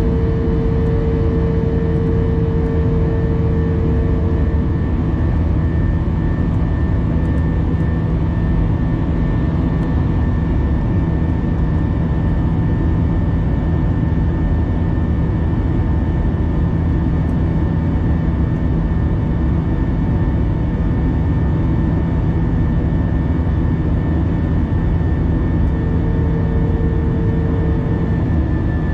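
Jet airliner's engines and airflow heard from inside the cabin, shortly after take-off: a steady, loud rumble with a steady hum and whine over it. A mid-pitched humming tone fades about five seconds in and comes back near the end.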